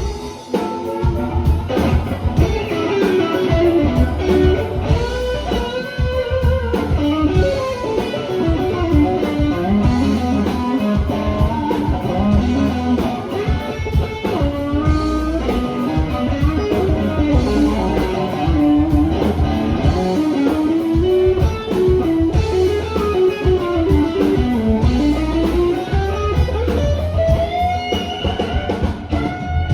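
A live blues band plays an instrumental passage: electric guitar over bass and drums. A lead line bends up and down in pitch throughout.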